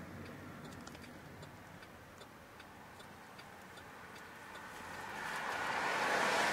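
Car turn signal ticking evenly, about three clicks a second, inside the car's cabin. A broad rush of road noise swells near the end.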